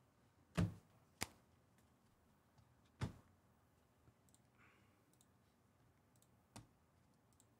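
Four isolated sharp clicks over faint room tone: two about half a second apart near the start, one about three seconds in, and a softer one near the end.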